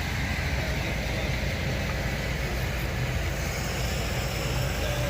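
A motor running steadily with a low, even hum and a hiss above it.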